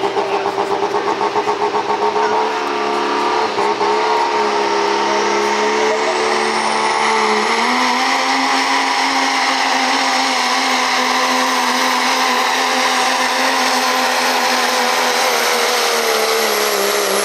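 Dodge Ram's Cummins inline-six turbodiesel at full throttle pulling a weighted sled. A pulsing engine note in the first couple of seconds gives way to a steady high-revving run, with a high whine that rises in pitch over a couple of seconds and then holds.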